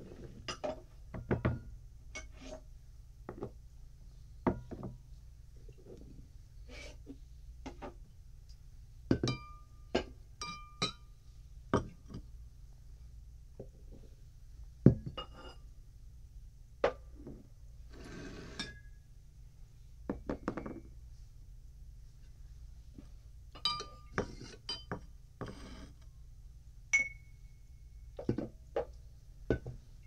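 Glassware on a bar top clinking, knocking and being slid: an irregular string of sharp clinks, some ringing briefly, with a few longer sliding scrapes, over a low steady hum.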